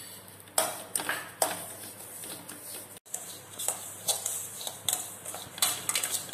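Slotted stainless steel spatula scraping and stirring semolina roasting in ghee in a stainless steel kadai: irregular scrapes against the pan with light metal clinks.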